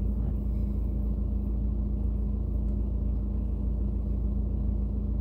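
Steady low rumble inside a car cabin, with a constant low hum.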